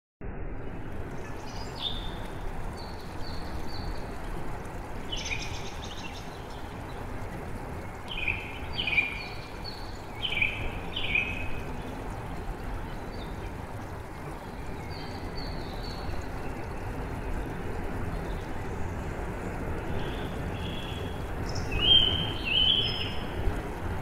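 Steady rush of flowing water, with songbirds singing short chirping phrases over it every few seconds, the loudest near the end.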